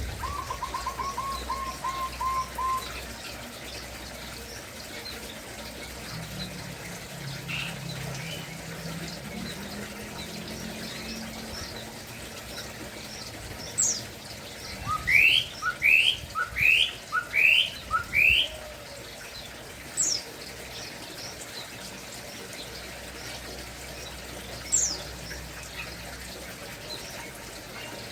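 Kopi-kopi (cucak kopi) songbird calling: a quick run of repeated notes in the first few seconds, then a phrase of five loud rising whistled notes in the middle, with a few single sharp high falling calls, over a steady background hiss like running water.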